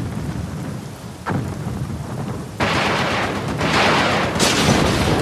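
Heavy rain falling steadily. About two and a half seconds in, a loud rumbling crash breaks in and keeps going to the end, with another peak near the end.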